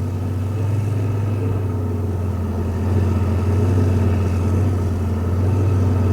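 Steady low engine drone of a vehicle, even in pitch throughout, with fainter hum above it; it cuts off suddenly at the end.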